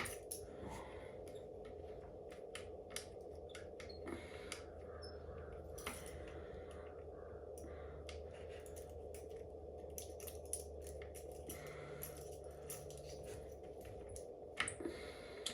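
Small metal parts clicking and clinking as the scooter's folding clamp mechanism is handled and fitted by hand, in scattered taps, over a steady hum.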